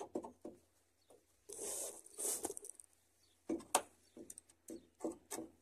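A short loop of thick rope being tightened with a wooden lever to lash a crossbeam to a plywood hull. Soft scattered rope rustles and scrapes, with two sharp clicks close together a little past halfway.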